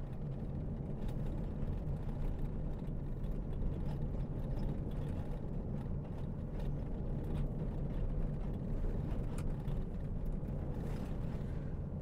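Steady road noise heard from inside a pickup truck's cab driving on a dirt road: a low drone of the engine and tyres, with scattered faint ticks.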